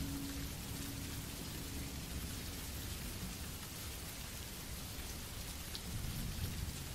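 Steady rain ambience: rain falling on a surface as an even hiss, with a low rumble underneath. A faint held hum fades out about two seconds in.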